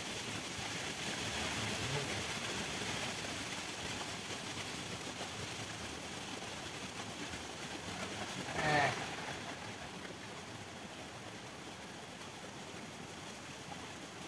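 Steady rushing of a small river's flowing water, with a person's voice breaking in briefly about nine seconds in.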